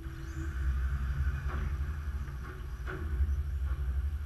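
Electric radio-controlled touring cars running on an indoor track: a steady low rumble and a mid-pitched hum, a brief high rising motor whine near the start, and a few sharp knocks.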